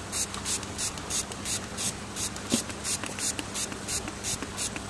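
Plastic trigger spray bottle pumped rapidly, each squeeze giving a short hiss of mist, about three sprays a second.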